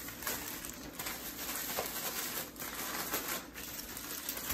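Mustard-coated fish pieces being mixed and tossed by hand in a dry cornmeal breading mixture, giving a soft, irregular rustling and scraping.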